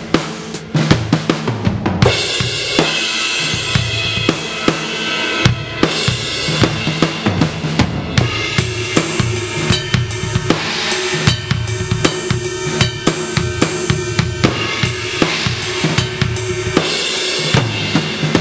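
Drum kit groove played through a 2Box electronic drum module using BFD2-sampled acoustic kit sounds: bass drum, snare and cymbals, with a cymbal wash over most of it.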